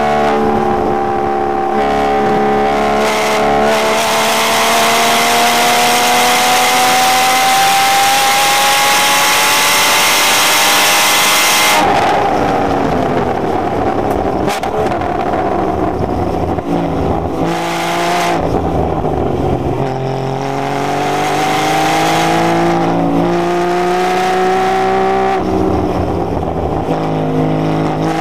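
Porsche Cayman's engine at full throttle on track, heard from inside the cabin, rising steadily in pitch for about twelve seconds. It then drops sharply as the driver lifts off for a corner, falls in pitch with a couple of brief blips, and climbs again as it accelerates out, with a gear change near the end.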